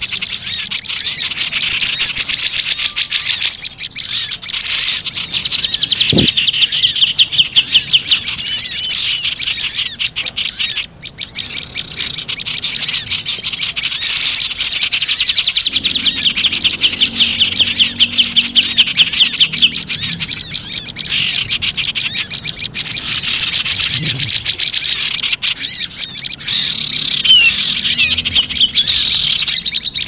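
Dense, noisy chorus of many small songbirds chirping and twittering rapidly over one another: a bird-lure (pikat) recording meant to call wild birds down. It thins out briefly about ten seconds in.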